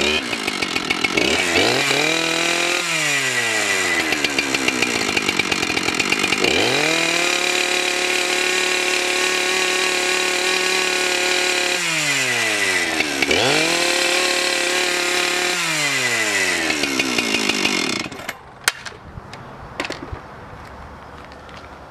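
Husqvarna two-stroke chainsaw, freshly rebuilt with a new piston and cylinder, running: it is blipped and then held at full throttle twice, dropping back to idle each time, and is shut off about 18 seconds in. A few sharp clicks follow.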